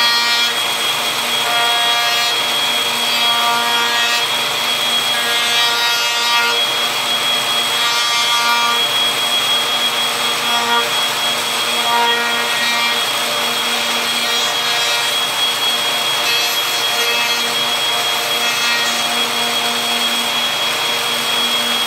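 Table-mounted router running at speed with a steady high whine while a plywood slingshot frame is fed around a bearing-guided bit. The cutting noise swells and fades every second or two as the edge is worked past the cutter.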